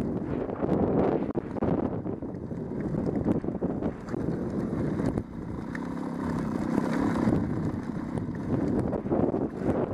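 Trials motorcycle engine running as the bike is ridden over rough grassy ground, its note and loudness rising and falling with the throttle.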